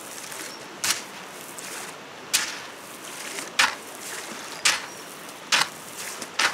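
A hoe blade striking and scraping into wet riverbank gravel and sand, six sharp hits about once a second, over a steady hiss.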